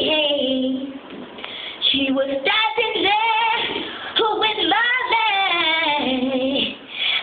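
A 12-year-old girl singing solo, in phrases with short breaths between them, some held notes wavering with vibrato.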